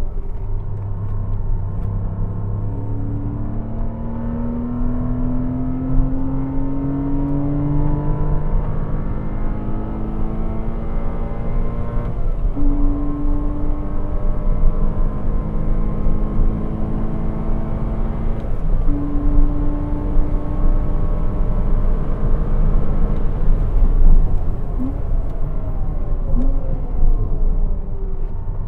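Porsche Cayman 987 flat-six engine accelerating hard through the gears, the pitch climbing and dropping back at an upshift about twelve seconds in and again about nineteen seconds in. Near the end the revs fall away under braking, with two short throttle blips for rev-matched downshifts.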